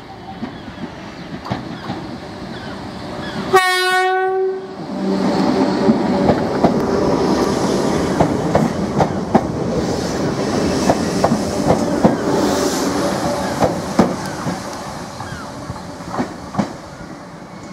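Class 313 electric multiple unit gives one short horn blast of about a second, a few seconds in. It then runs past, its wheels clacking over rail joints and points over a steady motor hum, and fades near the end.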